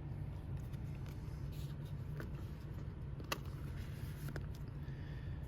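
Faint rustles and a few light clicks from plastic binder pages and card sleeves being handled, over a steady low background hum.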